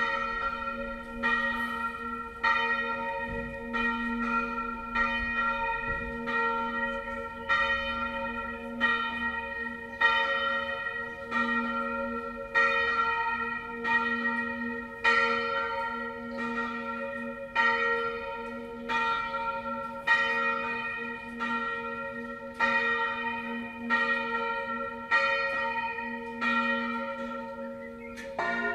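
A single church bell, the B-flat bell of 276 kg cast by Achille Mazzola in 1928, swung in full Tyrolean style. It strikes regularly, about one stroke every second and a half, and rings on between strokes. Right at the end a lower bell begins to swing in.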